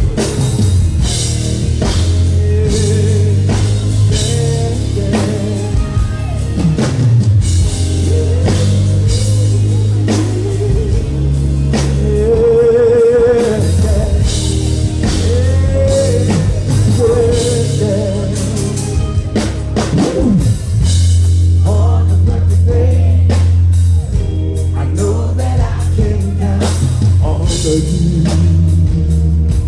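Live R&B concert music: a male lead singer singing with vibrato over a band with drum kit and bass, heard loud through the venue's sound system.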